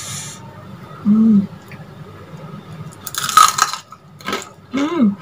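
A crisp deep-fried vegetable fritter (bala-bala) being torn apart by hand, giving a crackling crunch about three seconds in, followed by a few sharp crackles. A short vocal hum is heard about a second in.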